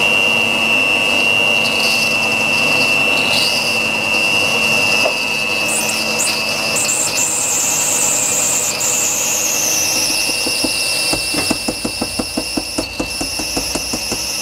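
Electric hand mixer running at low speed, its beaters churning a thick batter in a stainless steel bowl with a steady high whine that drops a little in pitch about two-thirds through. Near the end there is a quick rhythmic pulsing, about four beats a second.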